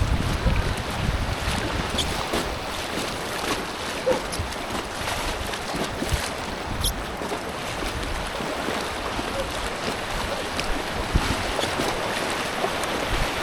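Steady rush of creek water running around an inflatable two-person kayak.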